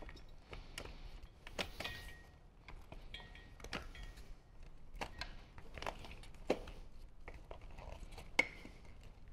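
Faint, scattered light clicks and taps, about ten of them at irregular intervals, from hands working among the wiring harness and plastic parts inside a motorcycle fairing. The sharpest taps come a little past six seconds in and near the end.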